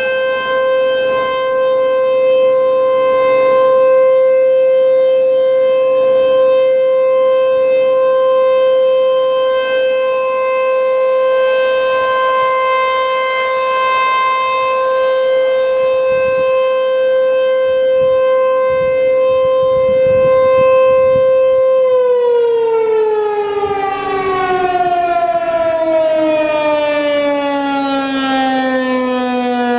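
An ASC T-128 electromechanical outdoor warning siren holds a steady single-tone alert, then about two-thirds of the way through it begins to wind down, its pitch falling smoothly as the rotor slows at the end of the test.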